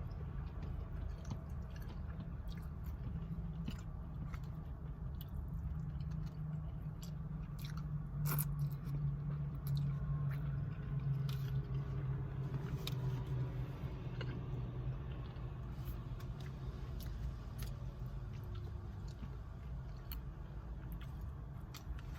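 A person chewing and biting food close to the microphone, with many short, scattered sharp mouth clicks.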